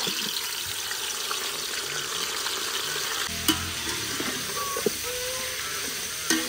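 Pre-boiled beef pieces sizzling steadily as they fry in hot oil in a wide pan, with three sharp clicks of a utensil against the pan partway through.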